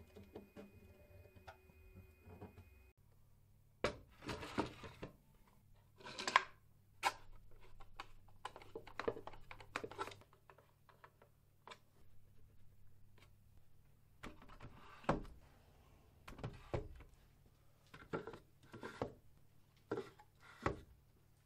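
Plywood and hardware being handled and fitted: a hex key turning a screw into a plywood part, then a string of irregular wooden knocks and clunks as a plywood drill holder is seated on a French cleat and cordless-drill batteries are set into its shelves.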